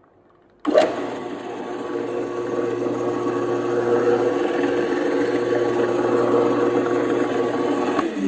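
Allwin 12-inch variable speed drill press, with a 500-watt induction motor, switched on a little under a second in. It runs with a steady hum while drilling a hole, and cuts off abruptly just before the end.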